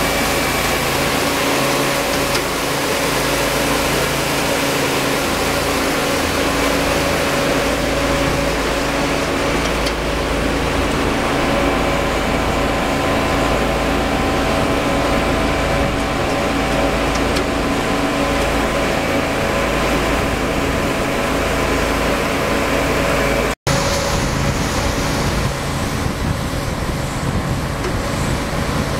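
Case IH AFX8010 combine harvester running steadily under load while harvesting field peas: a constant engine drone with machinery noise. The sound drops out for an instant about three-quarters of the way through, then carries on unchanged.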